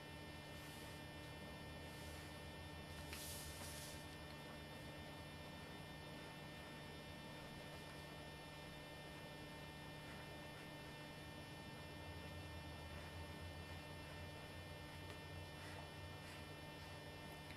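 Steady low electrical mains hum on the recording, with faint, brief scratches of a pen sketching on paper, the clearest about three seconds in.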